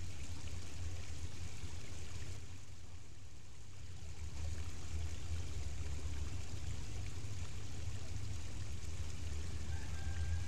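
Steady rushing of a flowing creek, with a strong low rumble under it that dips briefly a few seconds in. A thin, high steady tone sounds near the end.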